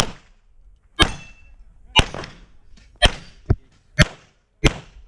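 Pistol shots during an IPSC stage run: seven shots, mostly about a second apart with two in quick succession about halfway through, each with a short echoing tail.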